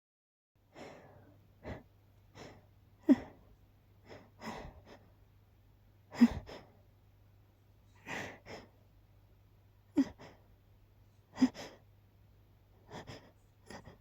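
A person's sneeze buildup: a string of short catching breaths and gasps, broken every few seconds by a sharp, much louder burst of breath and voice, some of which sound like held-back sneezes.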